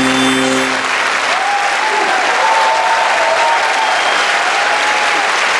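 The dance music ends about a second in and a theatre audience applauds, with a long drawn-out cheering call over the clapping through the middle.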